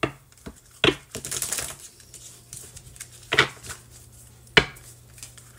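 A small stack of round cards being shuffled in the hands: four sharp clacks as the cards are knocked together, and a brief rustle of cards sliding about a second in.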